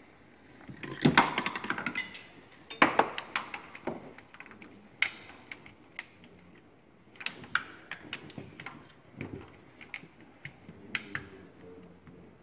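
Plastic wiring-harness connectors being handled and plugged into the engine's round injector connector: irregular sharp clicks and knocks, the loudest about a second in and again near three seconds.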